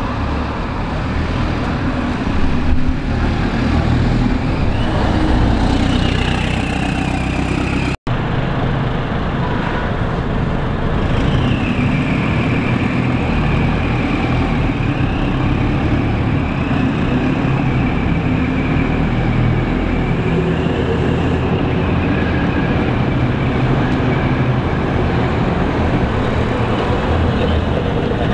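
LiAZ-677M bus's V8 petrol engine running as the bus drives along the street, with a steady high whine over the engine drone. The bus first pulls away; after a brief break in the sound it approaches and passes close by near the end.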